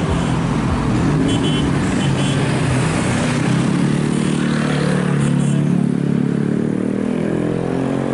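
Diesel engine of an intercity bus running close by. Its pitch rises steadily through the second half as it pulls away and gathers speed.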